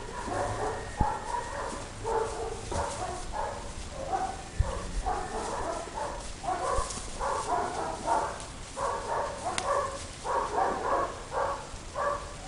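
Fila Brasileiro dogs barking in a long string of short barks in quick groups, stopping just before the end. A sharp knock about a second in and a dull thump a few seconds later.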